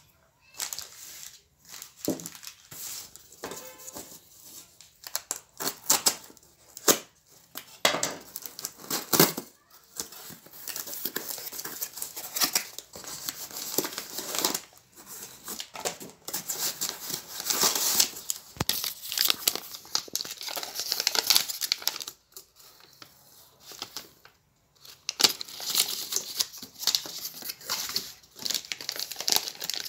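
Plastic packaging crinkling and rustling and a cardboard box being handled while a respirator and its filter cartridge are unpacked, in irregular bursts with a brief pause about three-quarters of the way through.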